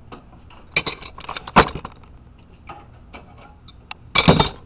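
Metal wrenches and valve parts clinking and knocking together as a threaded fitting is taken off a water fill solenoid valve: a few sharp hits, with a louder rattle of clinks near the end.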